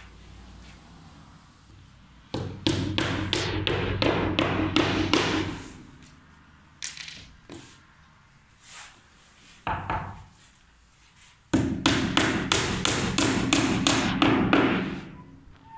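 Hammer driving small nails through an MDF spoilboard on a CNC router bed: two runs of quick strikes, about four a second, each lasting about three seconds, with a few single knocks between.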